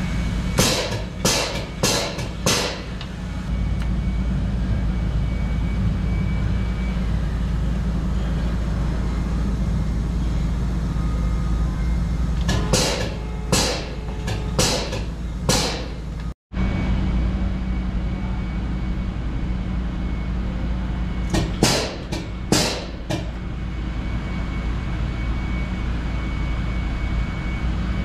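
Chassis greasing with a hose-fed grease gun under a mixer truck. Groups of sharp metallic clicks, several in a row, sound as the gun is worked at the grease fittings, over a steady low machine hum that cuts out briefly about halfway.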